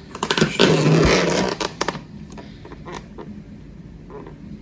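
Plastic food-storage container and its snap-on lid being handled and pried open: a burst of rustling and scraping plastic in the first two seconds, then scattered light clicks and taps.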